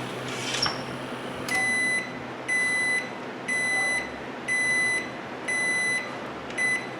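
Frigidaire microwave oven's beeper sounding six short, high beeps, one a second, starting about a second and a half in.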